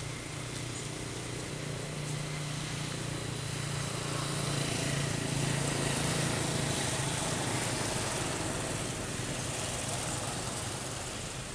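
A motor vehicle engine running as it passes by, a steady low hum that grows louder to a peak about halfway through and then fades.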